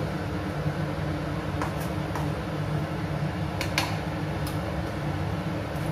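A metal spoon clinks against a metal kadai about five times while stirring noodles in water, over a steady low hum.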